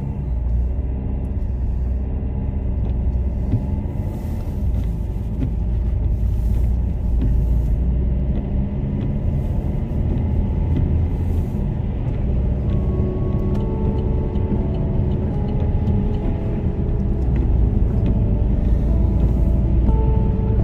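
Low, steady road rumble inside a moving car's cabin: engine and tyre noise while driving. In the second half, a few held notes of background music come in faintly over it.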